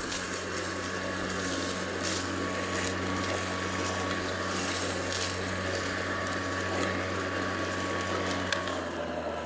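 Atlas 80V brushless cordless self-propelled lawn mower running while cutting grass: a steady electric-motor hum with a thin high whine. Near the end the whine stops and the hum drops away as the blade control is released.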